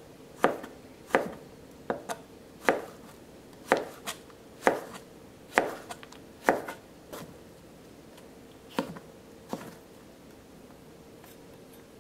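A chef's knife cutting peeled zucchini slabs into thin strips on a plastic cutting board, knocking against the board about a dozen times at a little under one stroke a second. The cutting stops a couple of seconds before the end.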